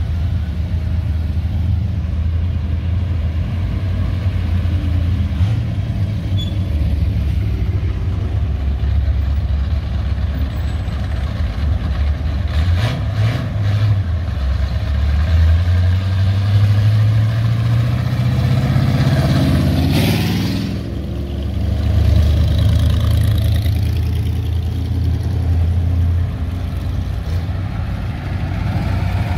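Cars driving away one after another, their engines idling and accelerating, with one engine revving up and rising in pitch before cutting off about two-thirds of the way in. Near the end a fire engine's engine rumbles past close by.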